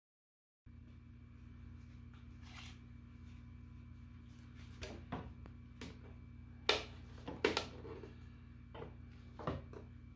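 Handling noises: scattered light clicks and knocks as a plastic thermostat backing plate and thermostat wire are worked against a wood-panelled wall, the sharpest two close together about two-thirds of the way in, over a steady low hum.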